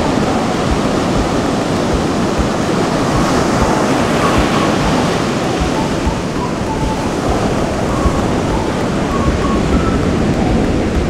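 Loud, steady roar of rushing water, like surf or a waterfall, with wind buffeting the microphone.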